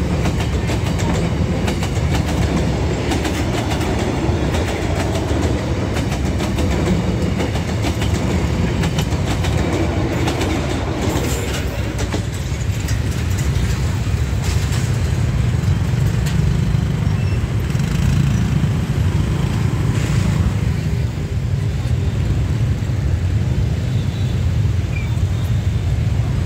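Passenger train carriages rolling past on the rails, with the clatter of wheels over rail joints. About halfway through the last carriage clears, leaving a steady low rumble of street traffic and idling motorbikes.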